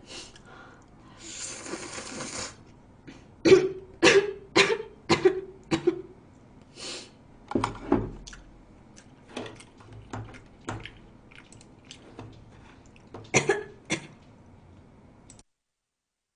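A woman eating stir-fried ramen noodles: a long slurp about a second in, then a scatter of short throaty and mouth sounds as she chews and swallows. The sound cuts off abruptly near the end.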